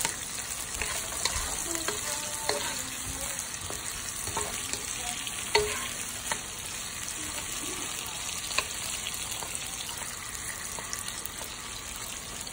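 Tomato wedges, garlic and ginger sizzling in hot oil in a nonstick pan, stirred with a slotted wooden spatula that scrapes and taps against the pan, with a few sharper taps.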